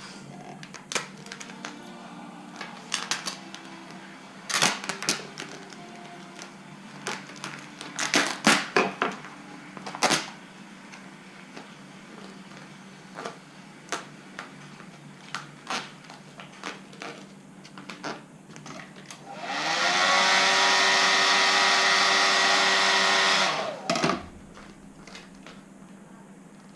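Scattered clicks and crackles of handling, then an electric hot-air blower switches on about twenty seconds in, its motor whine rising as it spins up, blows steadily for about four seconds and cuts off. It is heating the vinyl wrap film to soften and shrink it around the antenna.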